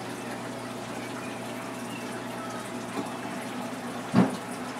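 Saltwater reef aquarium's water circulation running steadily: water splashing and trickling over a low, steady pump hum. A faint knock about three seconds in and a louder single thump about four seconds in.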